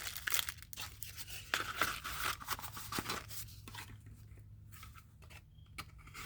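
Knife packaging being handled and torn open: irregular crinkling, rustling and tearing, busiest in the first few seconds and thinning out toward the end.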